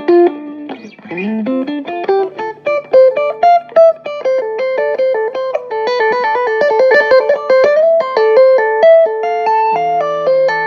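Electric guitar played through a guitar amplifier: a fast run of single notes with a few string bends, settling into a held chord near the end.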